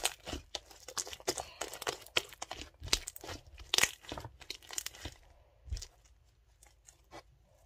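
Homemade slime squeezed and stretched by hand, giving a rapid run of wet clicks, pops and crackles. The clicks thin out to a few scattered ones after about five seconds.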